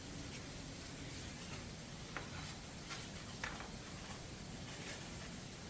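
A few faint, short clicks and taps, spaced irregularly, over a steady low hiss.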